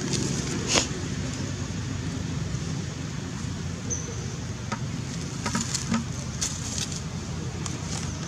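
Dry leaves and grass crackling in short scattered rustles as a monkey moves through leaf litter, one about a second in and several more in the second half, over a steady low rumble.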